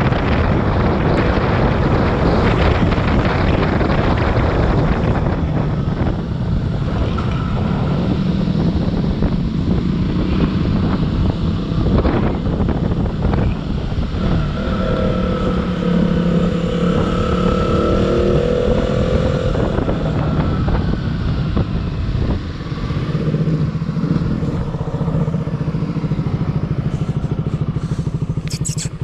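KTM Duke's single-cylinder engine running under way, its note rising and falling with the throttle, over wind and tyre hiss on a wet road. Over the last several seconds it settles to a steady low-rev running as the bike slows to a stop.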